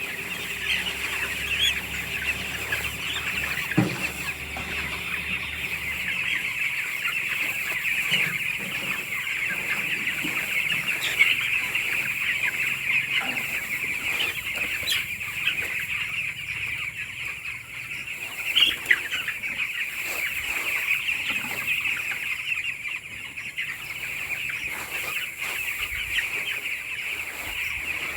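A large flock of chickens in a poultry house, clucking and calling continuously with many voices overlapping, a few louder calls standing out now and then.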